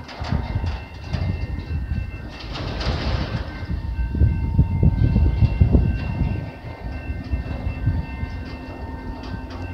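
Freight train's autorack cars rolling slowly past: a low rumble with irregular clacking and knocking of wheels over rail joints, heaviest about four to six seconds in. A faint steady high ringing tone runs underneath.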